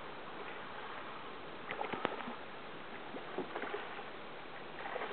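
Light water splashes and drips at a kayak, coming in three short clusters, over a steady hiss.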